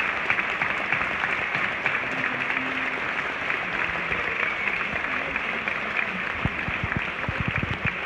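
Audience applauding, a dense steady clatter of many hands clapping, with a few low thumps near the end.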